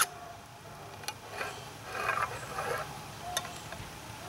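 A can of evaporated milk being opened with a small hand can opener: irregular metal clicks and short scrapes as the blade works around the rim, with one sharp click at the start.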